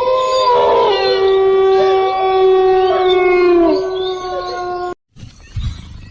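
Canine howling: several long, steady howls at different pitches overlapping, with a few short gliding calls, cutting off abruptly about five seconds in.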